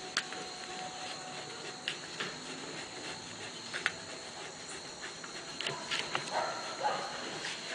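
Bull Terrier puppy whimpering in short cries from about six seconds in, after several sharp clicks of adhesive tape being pulled and pressed onto its ear.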